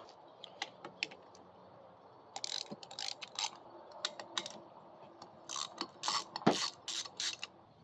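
Hand ratchet wrench clicking in short runs while the snugged cylinder-head bolts of a small single-cylinder engine are loosened.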